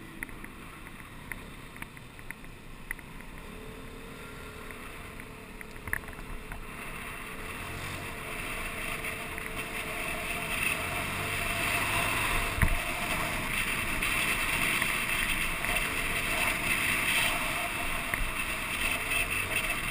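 Wind buffeting the microphone over the engine and road noise of a vehicle riding along a street, growing louder from partway through as speed picks up, with a single knock a little after halfway.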